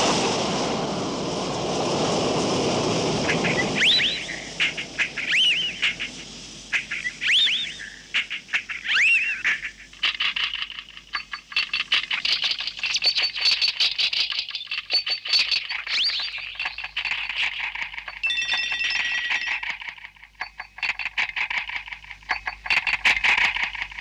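A glass furnace burner's steady rush for the first few seconds, then glass bottles on an automatic bottle-making machine and conveyor clinking in quick, dense clicks, with many short high squeaks of glass and metal rubbing.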